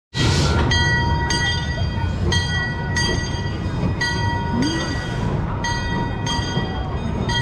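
Train rolling along the track, its wheels clicking over the rail joints about once or twice a second over a steady rumble, with a high ringing tone held throughout.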